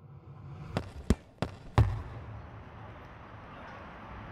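A football being struck four times in quick succession, about three thuds a second, each louder than the last, followed by a steady low hum.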